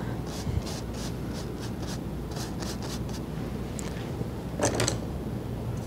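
Faint scratching and rubbing of a paintbrush working oil paint onto canvas, over a steady low room hum, with one brief louder sound about three-quarters of the way through.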